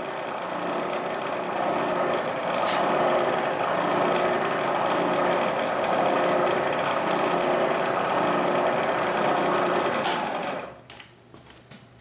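Milling machine spindle running steadily as a center drill cuts the pilot hole for the front sight in a steel shotgun barrel, with a couple of brief knocks; the machine stops near the end.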